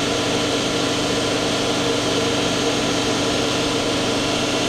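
Miyano BND34T5 CNC lathe spindle spinning steadily at 3000 RPM, a steady whine of several fixed tones over a mechanical hum.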